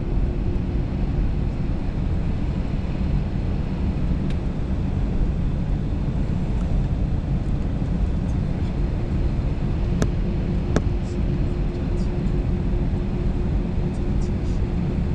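Steady low cabin rumble of a jet airliner taxiing, with a faint steady hum running through it. Two sharp clicks come about ten seconds in, less than a second apart.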